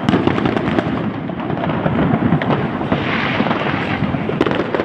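Fireworks going off in quick succession: dense crackling mixed with sharp bangs.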